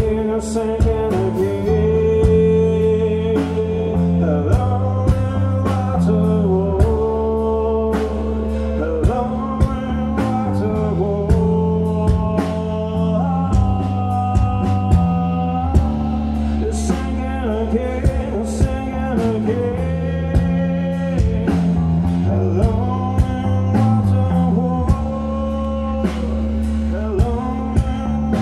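Live psychedelic rock band playing: electric guitars, bass and drums, with a singing vocal line over them.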